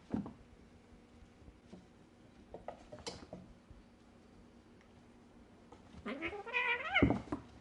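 Kitten meowing once, a drawn-out, wavering call near the end. Before it come a few light taps and knocks from play.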